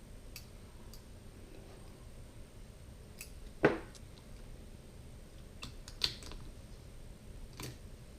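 Scattered small clicks and taps of hand tools and parts on a phone being disassembled, the loudest a sharp tap about three and a half seconds in and another about six seconds in.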